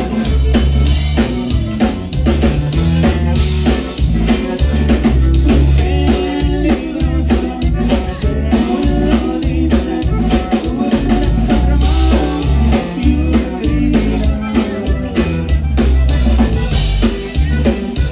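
Live conjunto band playing a Tejano song: button accordion, electric bass and drum kit, with a steady dance beat from the drums.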